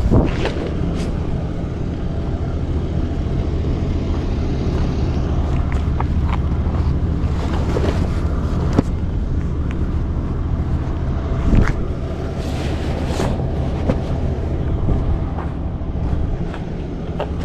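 Heavy truck tarp rustling and crinkling in short bursts as it is flipped over and folded on pavement, over a steady low rumble.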